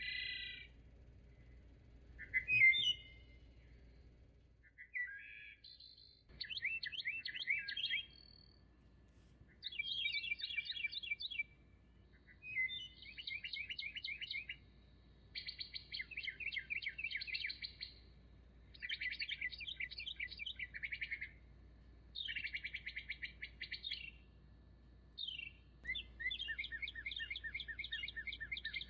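A songbird singing a series of rapid trills, each about two seconds long and repeated every few seconds, after a few shorter calls.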